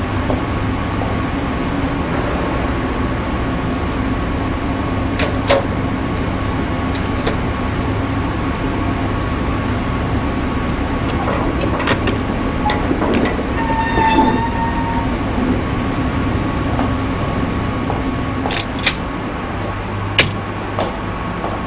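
Steady machinery drone of a basement pipe and boiler room, with a few sharp clicks scattered through it and a brief squeal about fourteen seconds in.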